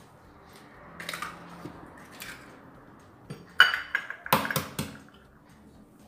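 An egg being cracked on the rim of a plastic blender jar: a few faint rustles, then one sharp knock and a quick cluster of clicks as the shell breaks and is pulled apart.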